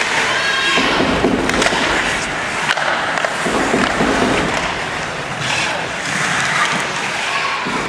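Ice hockey play: skate blades scraping and carving the ice, with a few sharp clacks of sticks and puck in the first few seconds.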